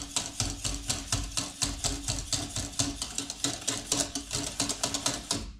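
A spatula or spoon clicking and scraping against a pot in quick, regular strokes, about six a second, while stirring semolina pudding, over a steady low hum.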